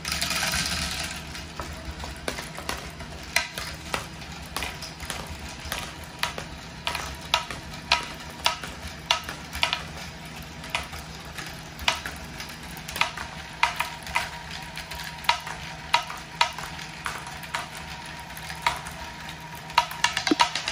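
Small plastic balls poured into a LEGO Archimedes screw module with a short burst of rattling, then irregular clicks and clatters, about one to two a second, as the turning screw lifts the balls, over a steady low hum.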